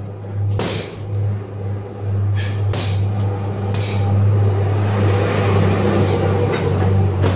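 A handful of punches thudding into a hanging heavy bag, irregularly spaced, over a steady low hum that grows louder about two seconds in and stays up.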